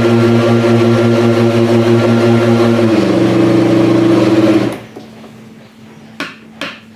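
Electric kitchen blender motor running with carrot-cake batter in the jar. About three seconds in its pitch drops as it labours under the load, and it stops just before five seconds in, followed by a few light clicks.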